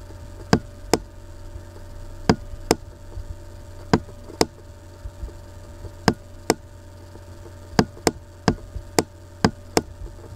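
Sharp computer-mouse button clicks, about twenty, many in pairs a fraction of a second apart (press and release), as letters are drawn stroke by stroke with an on-screen annotation tool, over a steady electrical hum.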